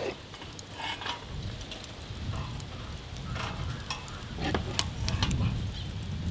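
Marinated whole chickens being handled and hung on metal hooks: wet rustling and a few sharp clicks of the hooks, over a steady low rumble.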